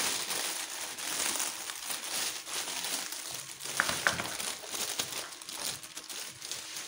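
Clear plastic packaging bag crinkling as hands open it and pull out the parts inside, with a couple of sharp crackles about four seconds in.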